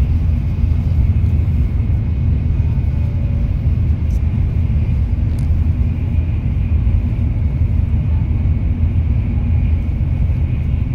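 Steady low rumble of a passenger train running, heard from inside the cabin, with a faint high whine above it.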